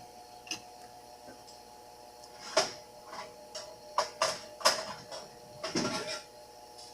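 Sharp clicks and knocks from handling the ribbon spools and ribbon parts of a Smith-Corona Coronet Electric 12 typewriter as they are worked loose, a scattered run of them from about two and a half seconds in, over a steady electric hum.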